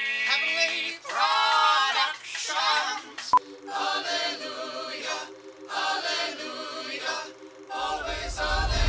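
A choir singing, with voices sliding in pitch over held notes. A single sharp click about three seconds in, and a low rumble that comes in near the end.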